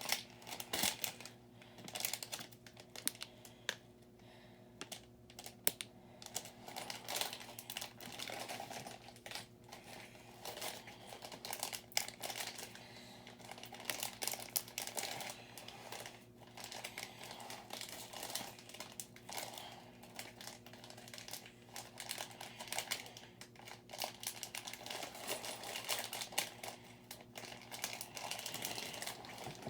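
Small off-brand LEGO-style plastic bricks clicking and clattering as pieces are sorted, handled and pressed together, in irregular runs of sharp little clicks, with some crinkling of plastic.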